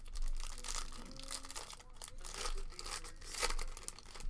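A foil Topps Pro Debut trading-card pack being torn open, its wrapper crinkling and crackling in irregular bursts. The loudest bursts come near the start and again about three and a half seconds in.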